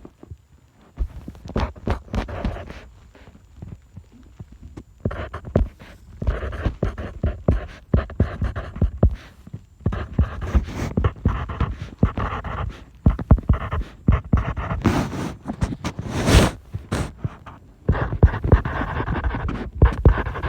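Close-miked scratching, rubbing and rustling of pencil and paper, in quick irregular strokes with short pauses, louder toward the end.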